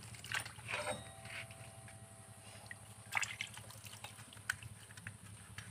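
Water trickling and dripping as motorcycle disc brake parts are washed by hand over a basin, with a few short splashes and handling knocks, the loudest a little after three seconds.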